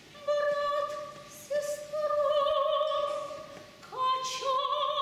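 Female soloist singing in a trained, operatic voice: long held notes with vibrato, three phrases each starting after a brief breath.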